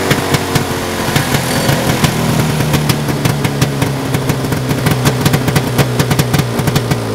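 Suzuki XR400 snowmobile's twin-cylinder two-stroke engine running steadily on its run test, with irregular sharp clicks over the steady engine note.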